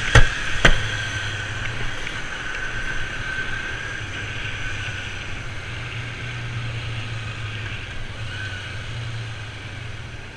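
Two sharp knocks of a gloved hand on the side of a car, about half a second apart, then a motorcycle engine running steadily under wind and road noise as the bike rides on.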